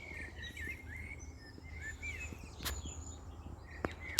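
Songbirds singing in the open, a run of quick, rising and falling warbling notes, with two sharp clicks about two and a half and four seconds in over a low rumble.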